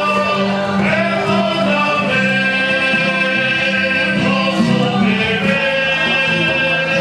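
Catholic hymn music with instruments and group singing, held notes at a steady level.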